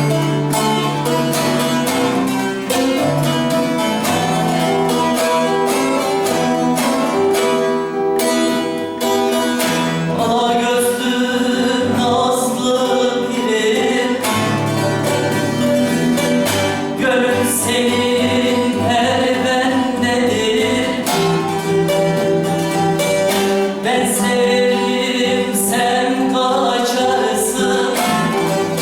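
Bağlama and acoustic guitar playing a Turkish folk tune together. A singer comes in about ten seconds in and carries on over the plucked strings.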